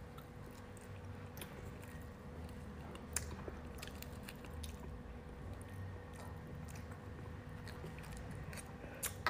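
Small metal spoon scraping and clicking against the inside of a starfish's arm as the roe is dug out, with faint chewing; one sharper click about three seconds in.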